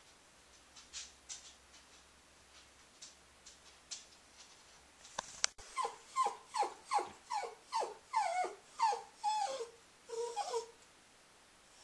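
Cairn Terrier whining: a run of about a dozen short whimpers, each falling in pitch, a little over two a second, starting about halfway through. This is the whining she does as she walks around with her stuffed hedgehog toy after eating, a habit the vet found harmless. Faint light ticks come before the whines.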